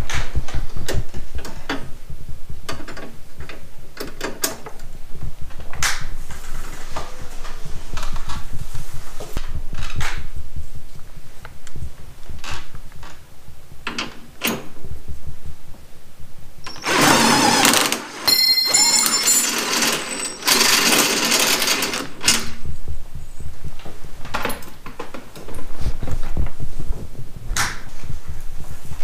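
A cordless driver runs in two short bursts about two-thirds of the way through, the second longer than the first. Scattered clicks and knocks of tools and parts being handled come before and after the bursts.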